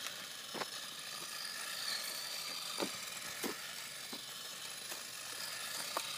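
Latrax Rally RC car drifting, its electric motor and drivetrain giving a high whine that rises and falls with the throttle, over the hiss of its electrical-tape-wrapped tires sliding on asphalt. A few short, sharp ticks come through.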